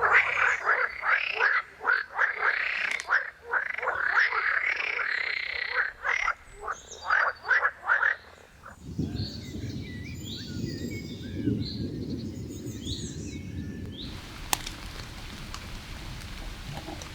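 Frogs calling in a chorus of quick, repeated croaks for the first half. They give way abruptly to a lower, denser croaking chorus, and rain starts falling in a steady hiss a few seconds before the end.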